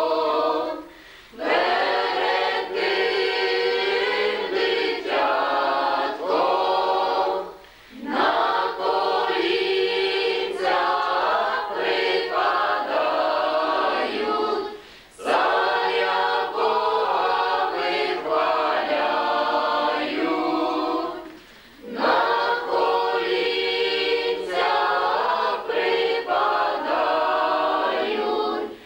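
A group of voices singing a Ukrainian Christmas carol (koliadka) together without accompaniment. The song comes in phrases of about seven seconds, with a short breath pause between each.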